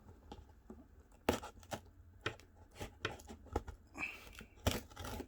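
A cardboard shipping box being handled and opened: irregular knocks and taps, the loudest about a second in and near the end, with a short rustling scrape about four seconds in.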